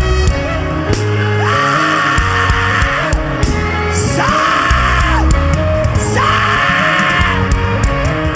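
Live gospel worship band playing, with a voice holding three long high notes, each bending in at the start and falling away at the end.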